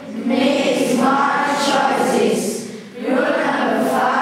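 A class of schoolchildren chanting together in unison, reciting classroom rules in English. There are two phrases with a short break about three seconds in.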